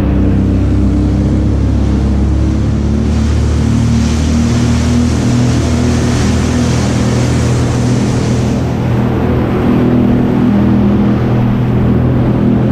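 Jet ski engine running steadily at speed, its pitch stepping up and down a little, with a rushing hiss of water and wind from about three to eight seconds in.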